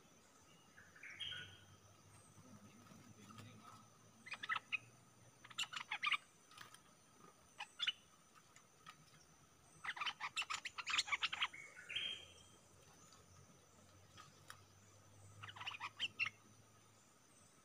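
Bulbuls calling: short bursts of rapid chattering notes, the longest about ten seconds in, with a couple of brief higher rising phrases between.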